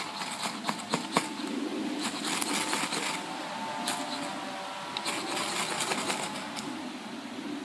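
Ferro rod (firesteel) scraped hard with a striker in several quick runs of rasping strokes with sharp clicks, throwing sparks into wood-shaving tinder to light a campfire.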